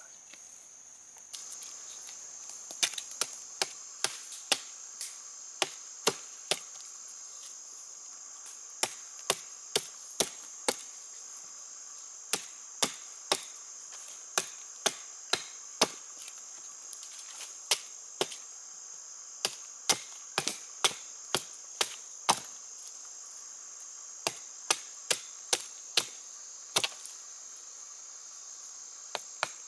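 Wood being chopped with a blade: sharp strikes at an uneven pace, about one a second and sometimes two in quick succession. Insects keep up a steady high buzz underneath.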